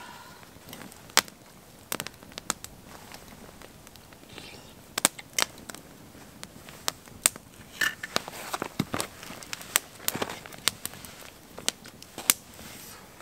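Cedar campfire crackling, with sharp pops at uneven intervals.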